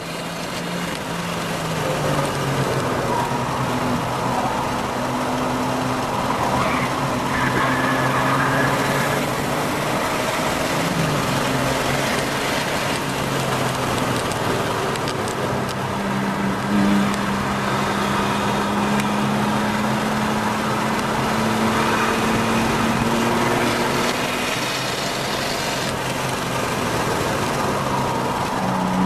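Car engine heard from on board during a lap of a racetrack, building in over the first couple of seconds. Its note holds for stretches and shifts in pitch at gear changes, about 11 and 16 seconds in.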